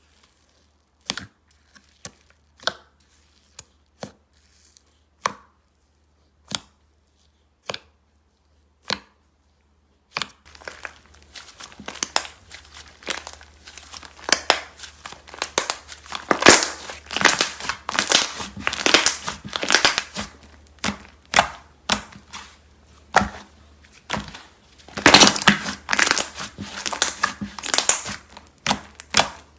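Slime being handled close to the microphone: a string of separate sharp pops, about one a second, for the first ten seconds, then dense, continuous crackling and crunching that swells and fades.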